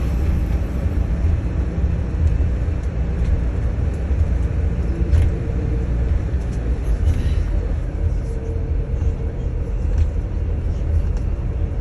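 Airport apron bus driving, heard from inside the cabin: a steady low engine and road rumble with a few light clicks.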